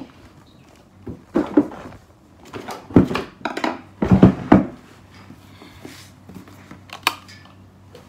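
Cardboard shipping box being handled and opened: irregular bursts of rustling and scraping with a few knocks during the first five seconds, loudest about four seconds in, then a couple of sharp clicks about seven seconds in.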